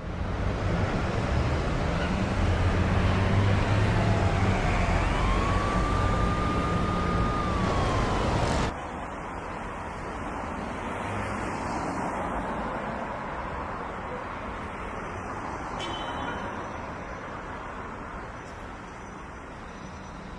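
Street traffic noise with a siren-like tone that rises, holds and falls about five seconds in; the sound cuts off abruptly near nine seconds to quieter, steady street noise.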